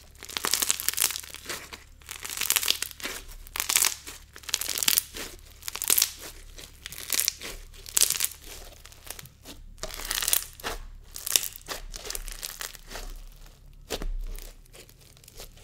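Clear Bingsu slime being squeezed and folded by hand, crackling and crunching in repeated bursts about a second apart.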